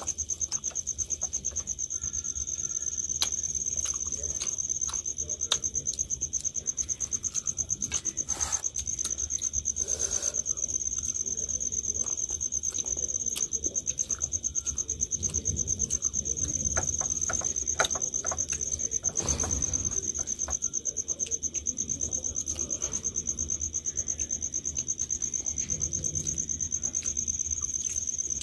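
Crickets trilling, a continuous high-pitched pulsing trill, with scattered soft clicks from hands eating rice and egg curry off steel plates.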